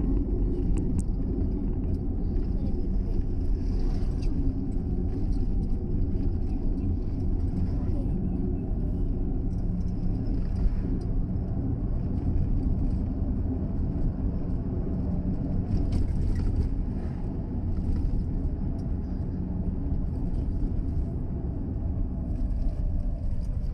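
Steady low rumble of a car driving, with no change in pitch or level.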